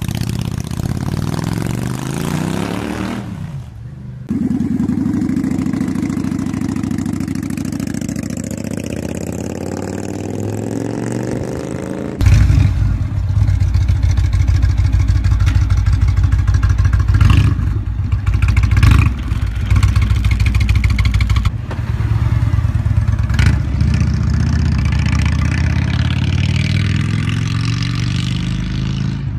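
Motorcycle V-twin exhausts, two bikes in turn. First a Honda Shadow VT 600 pulls away, its pitch falling. About 12 s in, an Indian Chief Vintage with a Rinehart slip-on exhaust comes in louder and deeper, blipped sharply a few times before riding off.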